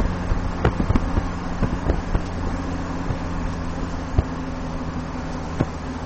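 Road noise inside a moving car's cabin: a steady low drone of engine and tyres, with scattered light clicks and knocks at irregular times.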